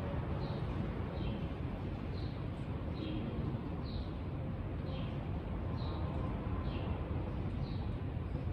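A bird calling a short, high, falling chirp over and over, a little more than once a second, over a steady low rumble.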